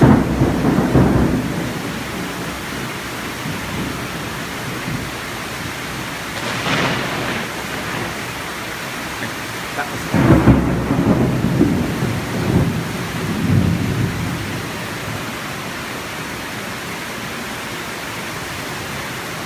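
Heavy tropical downpour hissing steadily, with thunder rumbling over it: a loud rumble right at the start and another long rolling rumble from about ten seconds in, lasting several seconds.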